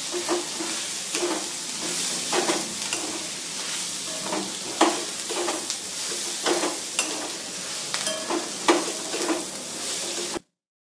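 Food sizzling in a hot pan while a spatula stirs it, scraping and knocking against the pan in irregular strokes over a steady frying hiss. The sound cuts off abruptly near the end.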